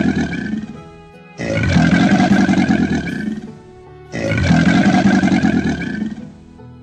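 A short music loop with a deep growling roar in it, starting abruptly and fading, then repeating identically about every three seconds.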